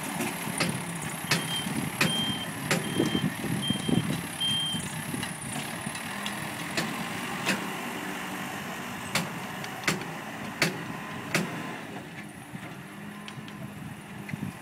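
A truck's engine running with its reversing alarm beeping about five times in quick succession, early on. Sharp knocks and clanks are scattered throughout.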